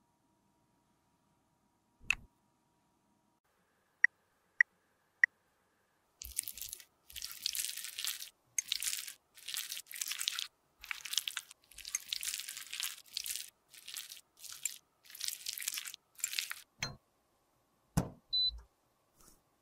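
A metal spatula scraping lipstick out of its tube in about a dozen short, scratchy strokes. A few sharp clicks come before it, and near the end there are two knocks and one short high beep.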